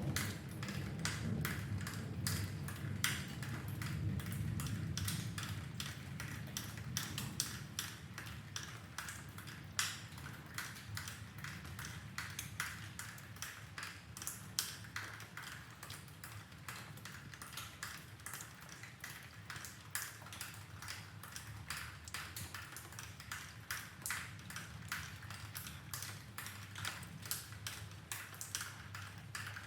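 Rain dripping: dense, irregular drips tapping and plinking. A low rumble of distant thunder fades out over the first several seconds.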